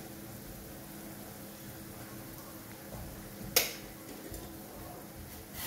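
Greens steaming quietly in an aluminium kadhai over a gas flame: a faint steady hiss with a low hum underneath. One sharp metallic clink comes about three and a half seconds in.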